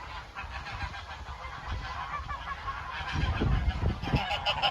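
A flock of African geese honking, many calls overlapping, growing busier and louder from about three seconds in.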